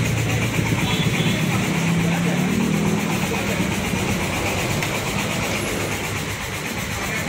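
Large diesel bus engine idling steadily, a constant low hum.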